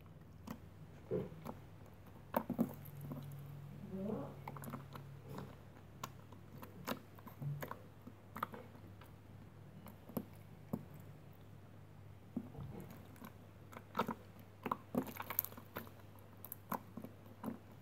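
Jiggly jelly slime being squeezed and poked by fingers: faint, scattered sticky clicks and squelches, over a faint steady low hum.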